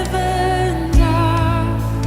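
Background pop music: a sung melody held with vibrato over a steady backing, with one low drum hit about halfway through.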